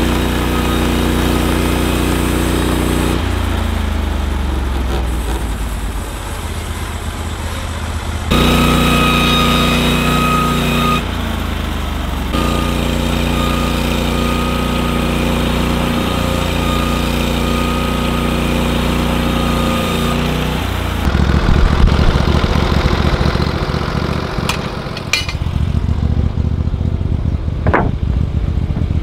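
Portable bandsaw sawmill (Norwood LumberPro HD36) running with its gas engine at a steady pitch while the blade cuts through a pine cant, heard in several spliced stretches. About 21 seconds in the sound changes to a rougher, louder rumble with a few sharp knocks.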